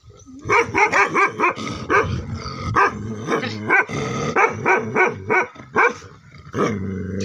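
A big dog barking repeatedly. It gives a quick run of short barks, about four a second, starting about half a second in, then more spaced barks.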